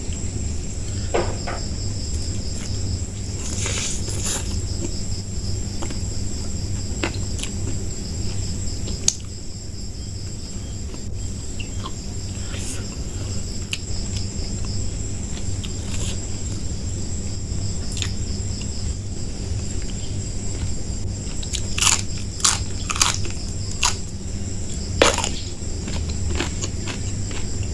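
Close-up eating sounds: chewing and crunching on food such as raw vegetables and crackers, with scattered sharp bites, the loudest a cluster about three-quarters of the way through. A steady high chirring of crickets runs underneath.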